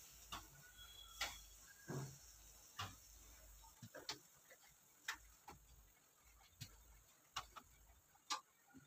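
Metal tongs and a knife tapping against a coated wok while peeling skins off softened tomatoes: about a dozen light, irregular clicks over near silence.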